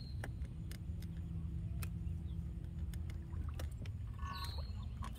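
Electric trolling motor humming steadily at a low pitch, cutting off about three and a half seconds in, over a steady low rumble.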